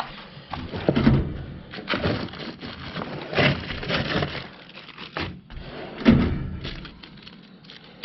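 Handling noise at a steel tool chest: irregular rustling and knocking with several dull thuds, the heaviest about a second and six seconds in, as its drawers and rubber drawer liners are worked.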